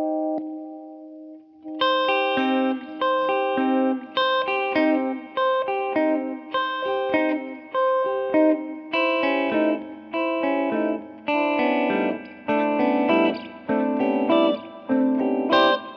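Electric guitar (Fender Jazzmaster Modern Player) played through an Ibanez DE-7 delay pedal. A held chord dies away, then about two seconds in a run of single picked notes starts in an even rhythm, about two notes a second.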